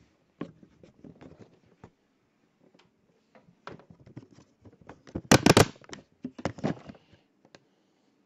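Handling noise on a handheld camera's microphone as it is moved about: scattered clicks and rustles, with a louder cluster of knocks about five seconds in and a smaller one shortly after.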